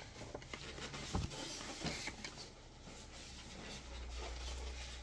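Faint rustling and light taps of paper and cardboard packaging being handled, with a few sharper clicks about a second and two seconds in.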